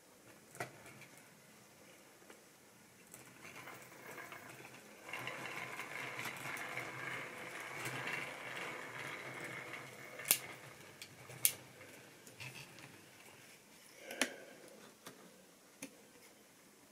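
Model railway rolling stock handled on the track: a faint steady whirr swells a few seconds in and fades about ten seconds in, followed by a few sharp plastic clicks.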